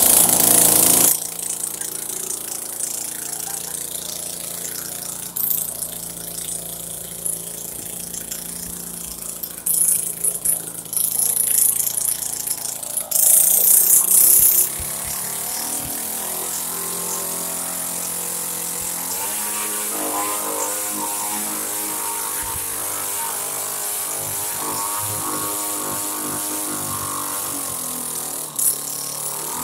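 Small gasoline engine of a homemade RC plane running and revving up and down as it drives the propeller, with several louder surges in the first half before it settles into a steadier run.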